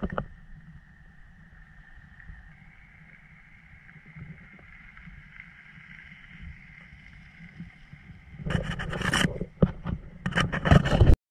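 Quiet outdoor background with a faint steady high drone, then from about eight and a half seconds in a run of loud rustling, scraping bursts of handling noise on the camera's microphone, cutting off suddenly near the end.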